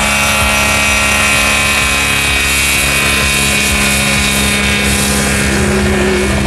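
Self-launching motor glider's pylon-mounted engine and propeller running at takeoff power during the takeoff roll: a steady, loud propeller drone whose pitch eases slightly downward.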